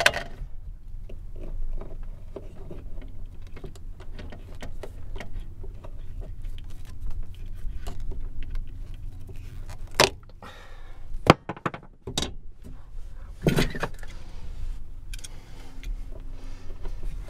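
Electrical wire being handled and trimmed with hand wire cutters: scattered small clicks and rustles, with louder sharp clicks about ten seconds in and again a few seconds later, over a steady low hum.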